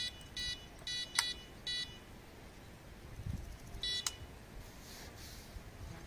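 Electronic carp bite alarm giving short beeps: four in quick succession over the first two seconds and one more about four seconds in, with a sharp click about a second in.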